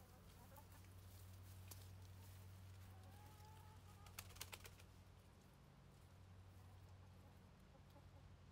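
Near silence over a low steady hum, with faint soft clucking of hens and a few light clicks about four seconds in.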